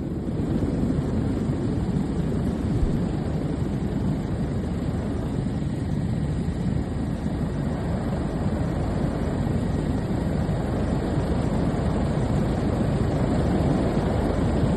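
Steady aircraft engine noise heard from on board, a deep even rumble with no distinct events.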